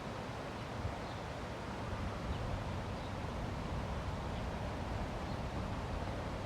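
Outdoor ambience: a steady low rumble with wind buffeting the microphone, and a few faint high chirps.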